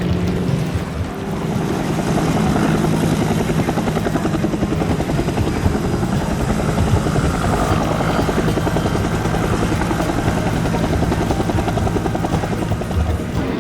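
Helicopter hovering, its rotor blades chopping steadily with the turbine running underneath.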